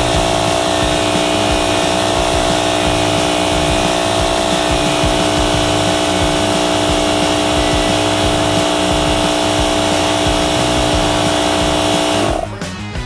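A motor-driven machine running steadily at one constant pitch, stopping abruptly near the end.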